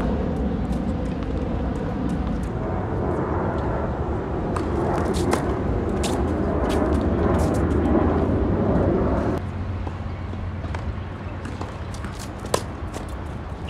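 Tennis ball struck by rackets and bouncing on a hard court, sharp pops over a steady low outdoor rumble. The rumble drops suddenly about two-thirds of the way in, and one louder crisp racket hit stands out near the end.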